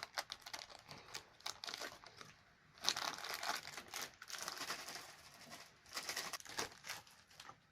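Plastic snack wrapper crinkling and rustling in the hands as it is handled and worked open, in irregular bursts with short pauses.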